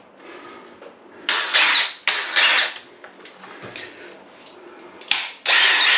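Cordless drill/driver having a bit tightened into its keyless chuck. It makes two short noisy bursts a little over a second in, a click, then a longer burst near the end.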